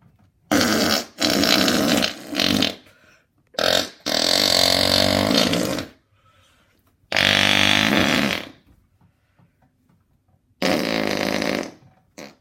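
Hand farts: air squeezed out between cupped hands, making about six loud, rough fart noises with pauses between them, the longer ones lasting one to two seconds.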